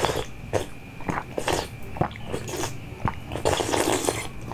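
Breathy mouth noises close to the microphone: short puffs and sucks of breath at the rim of a glass bowl, with small clicks between them and a longer breathy rush near the end.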